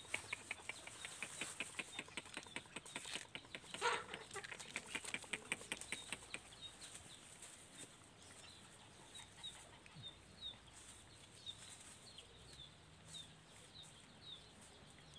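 Quick soft clicking of puppies and a hen feeding at the ground, with one louder knock about four seconds in. Through the second half, faint short high chirps repeat about once a second.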